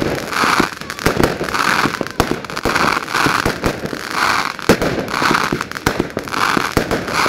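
Fireworks display: a dense run of loud bangs and pops, with a crackling hiss recurring about twice a second.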